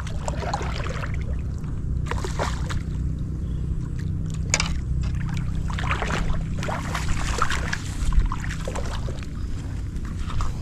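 Water splashing and sloshing in short irregular bursts as a hooked fish fights at the surface, over a steady low rumble of wind on the microphone.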